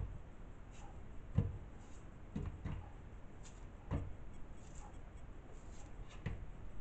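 Hands peeling a satsuma and pulling it apart: faint tearing and rustling with a few soft knocks, the loudest about a second and a half in.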